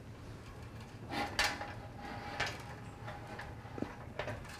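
Romex cable being fed through the sheet-metal housing of a fluorescent light fixture held against the ceiling: faint rustling and a few brief scrapes and knocks of cable and hands on the metal.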